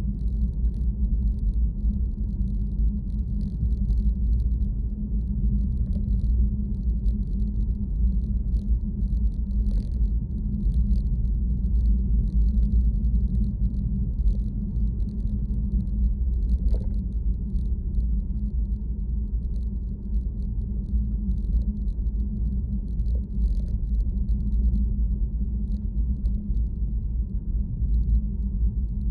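Steady low rumble of a vehicle in motion, with faint light ticks over it.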